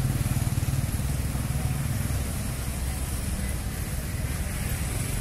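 Small motor scooters running close by, a steady low engine rumble.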